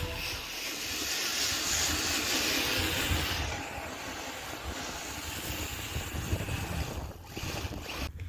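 Wind blowing across the microphone in a snow blizzard: a steady rushing hiss with low buffeting rumbles, easing a little after about three seconds.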